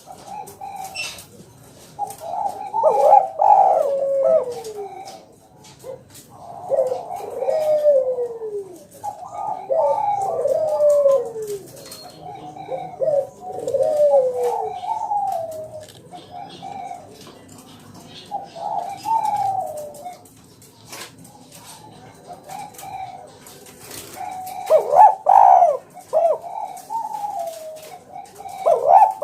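Spotted dove (tekukur) cooing: a string of repeated coo phrases, several falling in pitch at their end, with short pauses between.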